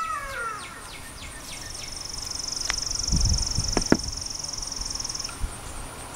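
A rooster's crow trails off in the first second. Then an insect trills steadily on one high note for about four seconds, with a few soft thumps and clicks of glove and kit handling around the middle.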